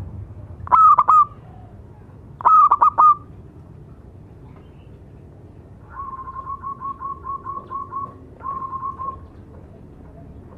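Zebra dove cooing: two loud short phrases of a few notes each, about one and two and a half seconds in, then a long run of quick soft cooing notes at about five a second, a brief pause, and a few more.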